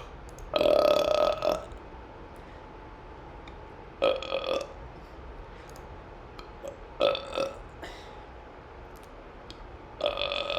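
A person doing deliberate burps, four of them about three seconds apart. The first burp lasts about a second and the others are shorter.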